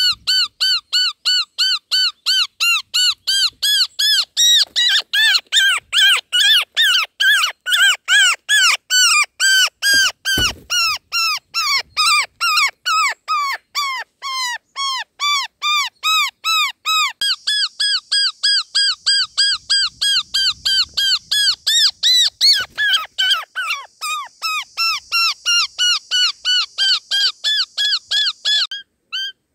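Roller nestlings giving harsh, rapid begging calls, about four short arched notes a second without pause. About halfway through, a second, higher-pitched series of calls joins in. There is a single low knock about ten seconds in.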